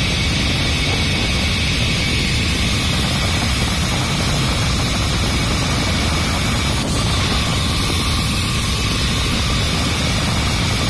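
Inline copper tube cutting machine running: a steady, unbroken mechanical noise with several high, even whines through it, and a faint click about seven seconds in.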